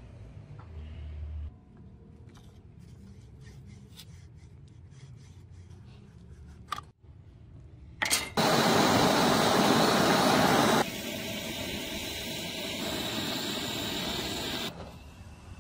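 Forged steel naginata blade scraping and slicing through a block of red wax: a sudden loud rasping scrape starts about halfway through, eases to a quieter steady scraping a couple of seconds later, and stops near the end.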